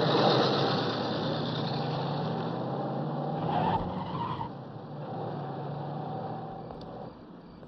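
A car engine running as the car pulls away, its sound fading into the distance.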